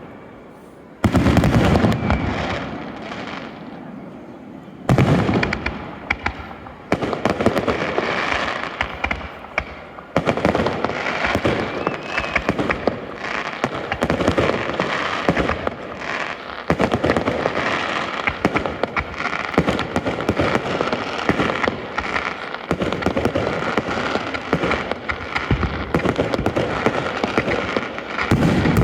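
Aerial fireworks shells bursting: a heavy boom about a second in and another near five seconds, then a dense, continuous barrage of overlapping bursts and crackling.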